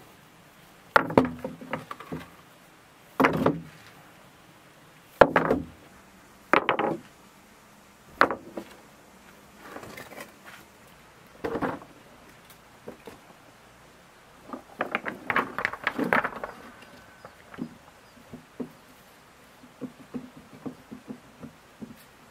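Stones dropped one at a time into a wooden wheelbarrow: about half a dozen heavy stone-on-wood knocks a second or two apart. A burst of clattering stones comes after them, then light knocks and rattles from the wooden barrow.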